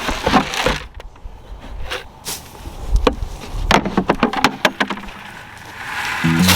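Irregular clicks and knocks, with a quick run of clicks about four seconds in. Music comes in near the end.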